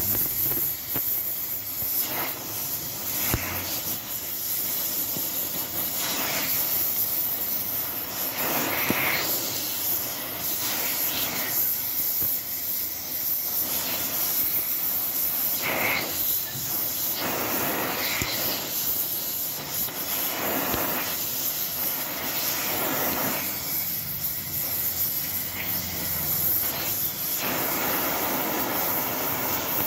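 TIG welding arc on aluminium: a steady hiss that swells briefly every few seconds.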